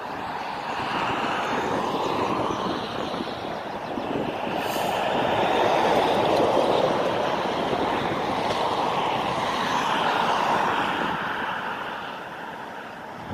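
Jet engine noise of a landing Ryanair Boeing 737: a steady rush that grows to its loudest around touchdown midway through and fades near the end as the airliner rolls out along the runway.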